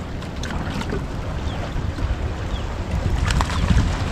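Steady low rumble of wind on the microphone and water around a small boat, with a few faint knocks about three seconds in.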